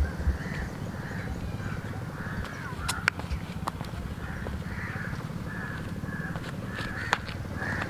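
Crows cawing repeatedly, about two short harsh calls a second, over a steady low rumble, with a few sharp clicks around the middle and near the end.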